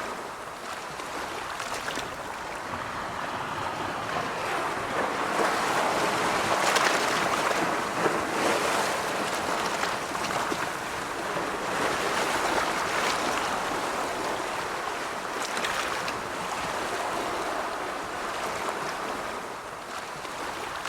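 Sea waves breaking and washing in a continuous surf, swelling and easing every few seconds.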